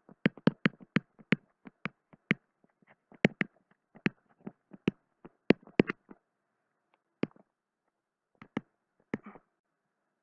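Sharp, irregular clicks and taps of handwriting being entered on a digital whiteboard. They come thick and fast for about six seconds, then only a few scattered ones near the end.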